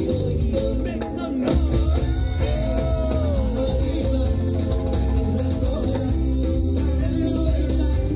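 A live Latin band playing an upbeat song with a steady beat.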